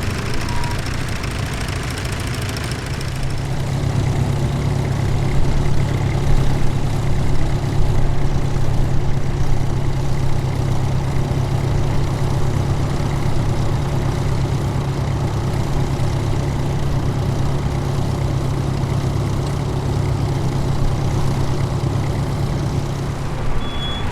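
Tractor engine running steadily with a deep, low hum, growing louder about three seconds in.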